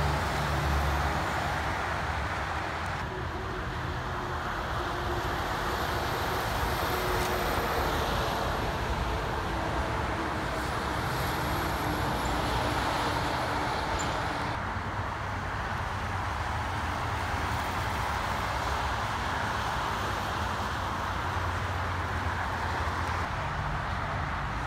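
Steady interstate highway traffic: tyre and road noise from passing cars and heavy trucks, with the diesel engine drone of semi trucks going by, loudest near the start and swelling again twice later on.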